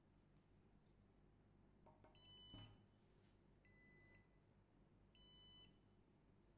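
Electronic buzzer sounding three short beeps, each about half a second long, alternating between a higher and a lower tone roughly every second and a half: the warning for an incorrect keypad passcode. A click and a soft knock come just before and under the first beep.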